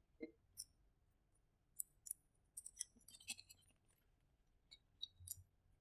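Near silence, broken by faint scattered clicks and a brief rustle as a paper word card is handled and pressed onto a whiteboard.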